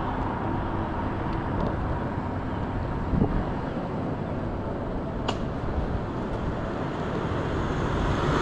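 Steady rumble of wind and road noise from riding an off-road Segway along a tarmac road, with a single knock about three seconds in. Near the end the noise swells as an oncoming van passes.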